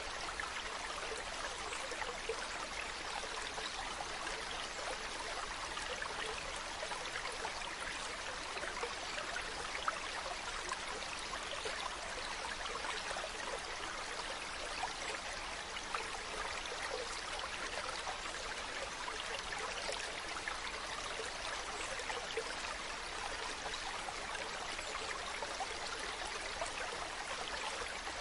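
Mountain stream running over rocks: a steady, even rush of water with small splashes and trickles.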